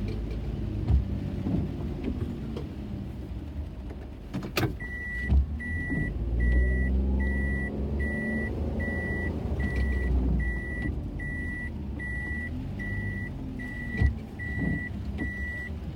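A car running with a low rumble; about four and a half seconds in there is a sharp click, then a high electronic beep starts repeating, a little faster than once a second.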